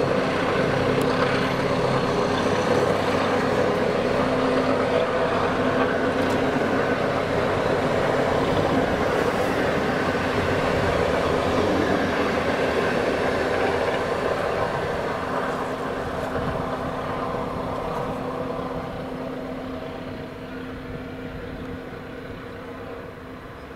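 Diesel locomotive engine running under load as it hauls a train, a steady drone that fades away over the last ten seconds or so.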